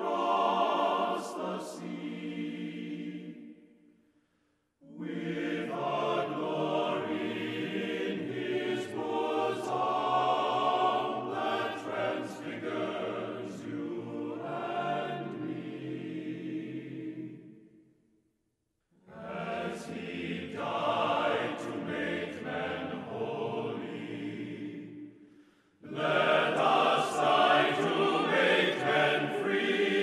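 Background music of a choir singing in long phrases, with brief pauses between them.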